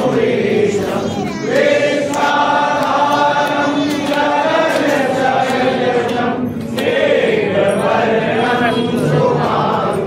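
A group of voices singing a Hindu aarti hymn together in long, held notes.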